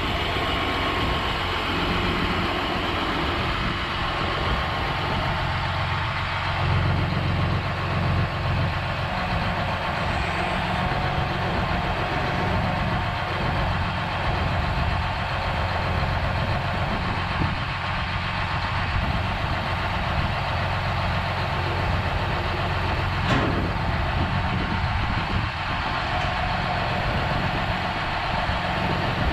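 John Deere 8130 tractor's six-cylinder diesel engine running steadily at idle, with one sharp click about three-quarters of the way through.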